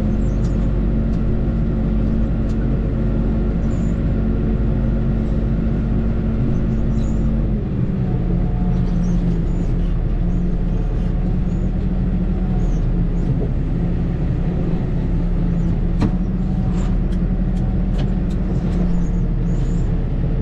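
Case Maxxum 125 tractor's diesel engine running steadily, heard from inside the cab while reversing. About seven and a half seconds in, the engine note drops to a slightly lower pitch, and a few light clicks come near the end.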